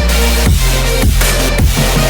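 Background music: an instrumental electronic track with a heavy bass line and a kick drum about twice a second.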